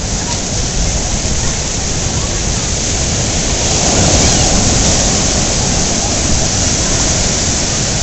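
Hurricane wind buffeting the microphone over the steady rush of heavy surf, swelling louder about four seconds in.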